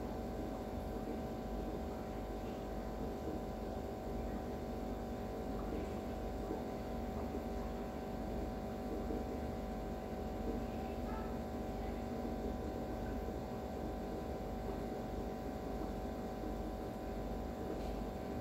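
Steady electrical hum made of several fixed tones, unchanging throughout.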